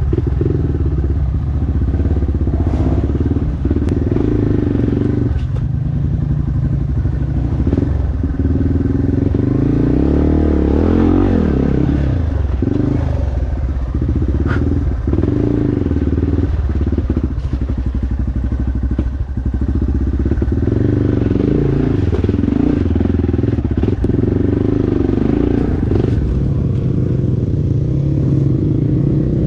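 Dirt bike engine running on an off-road trail, the revs rising and falling as the throttle is worked, with a clear rev up and back down about ten seconds in and some clattering knocks from the rough ground.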